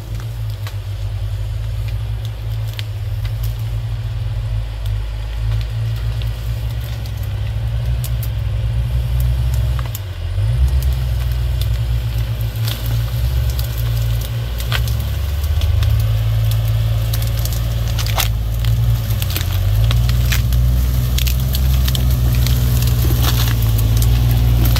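Off-road vehicle engine running with a low, steady drone that dips briefly a few times, with scattered clicks and rattles over it.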